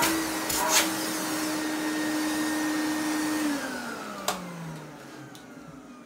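Victor D9 commercial vacuum cleaner's motor running with a steady whine, then switched off about three and a half seconds in and winding down with a falling pitch. A sharp knock about four seconds in. The motor runs smoothly, its fan case taped and inner baffle glued back together.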